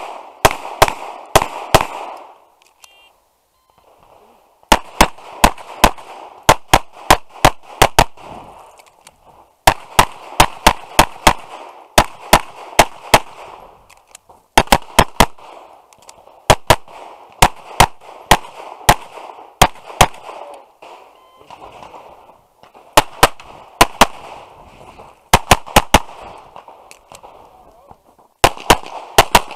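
Tanfoglio Stock 2 pistol fired in rapid strings, two to six shots about a quarter second apart, broken by pauses of one to three seconds.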